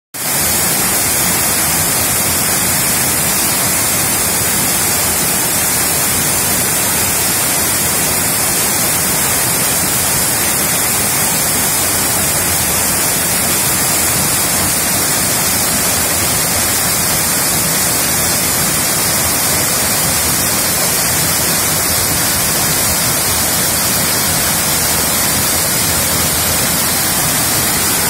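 Waterfall in heavy flow, pouring over a rock ledge into a pool: a loud, steady rushing of falling water.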